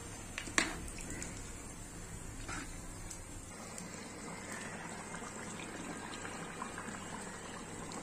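Beef curry simmering in a steel pot, its thick gravy bubbling steadily. There is a sharp click about half a second in.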